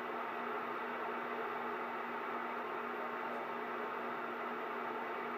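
Cobra CB radio's speaker putting out a steady static hiss with a constant low hum, with no voice on the channel between transmissions.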